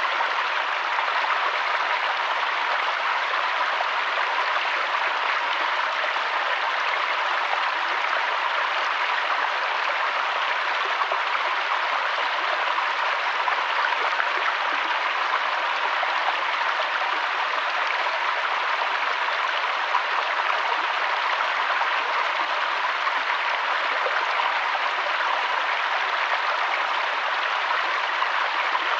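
Waterfall water rushing and splashing in an even, unbroken stream.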